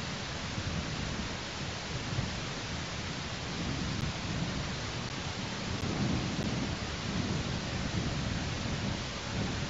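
Steady rushing noise with an uneven low rumble under it: weather on an outdoor nest-camera microphone.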